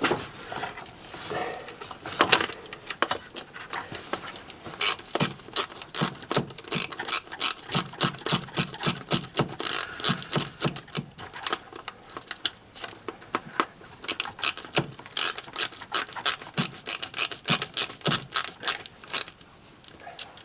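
Hand ratchet clicking in two quick runs of about five clicks a second, with a pause between them, as the screws holding the distributor cap are tightened down.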